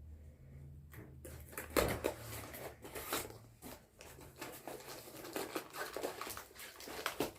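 Packaging of a boxed anime figure being opened by hand: a run of irregular crackles and rustles that starts about a second in.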